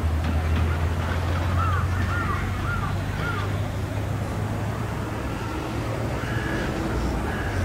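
A bird gives four short calls in quick succession about a second and a half in, over a steady low rumble and outdoor noise.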